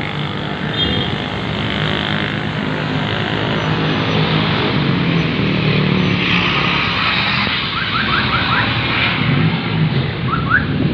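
Strong wind gusting against the microphone, loud and steady, with a low hum underneath.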